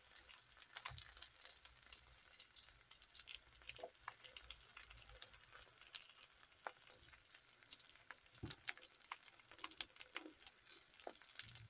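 Eggs frying in a pan of bubbling, foaming fat and liquid, sizzling steadily with many small crackles and pops.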